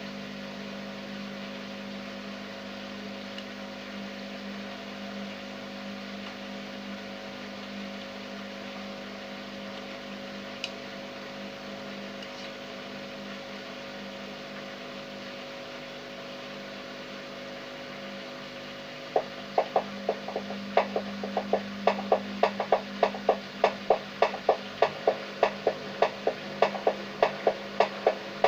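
Beko washing machine running with a steady motor hum. About two-thirds of the way in, a loud regular cracking starts, roughly two sharp knocks a second: the strong crackling the machine makes on spin as it picks up speed.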